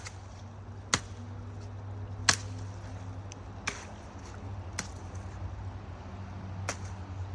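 Machete blade chopping into a small tree's wood: about six sharp strokes at uneven intervals of roughly one to two seconds.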